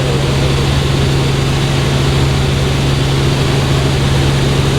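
Helicopter running in flight: a loud, steady engine and rotor drone with an unchanging low hum.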